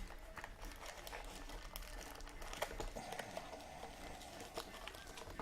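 Trading-card pack wrapper crinkling as a pack is opened and its cards handled, with many light quick ticks.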